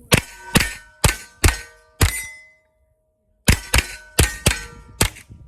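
.22 rimfire rifle firing ten quick shots in two strings of five, about a second and a half apart, at steel plates that ring after each hit.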